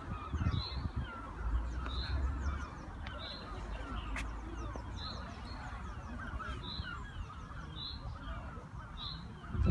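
Birds calling: one short high call repeats about once a second over a busier chatter of other birds.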